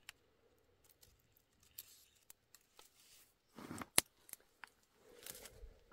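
Faint scattered clicks and rustles of dry ephedra stems handled and brushed, with a short crunch and a sharper click about four seconds in, and a soft rustle near the end.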